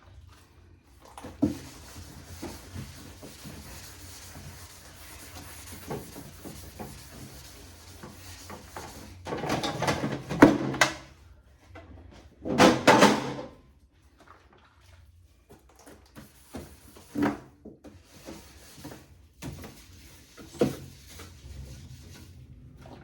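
Handling noise from cleaning out a fridge: scattered knocks and clatters, with two louder stretches of rubbing and scraping a little before halfway and just after it, typical of fridge drawers and shelves being moved and wiped.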